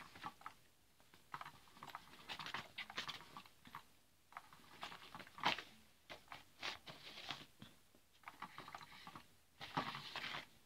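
Faint, irregular rustling and scratching of the nylon cover of a Cat's Meow cat toy as cats paw and bat at it, in scattered short bursts.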